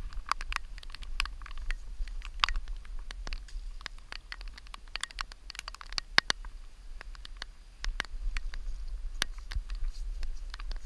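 Wind buffeting the microphone of a body-worn camera as a steady low rumble, with scattered small clicks and rustles from the camera and clothing moving as the wearer walks about on grass.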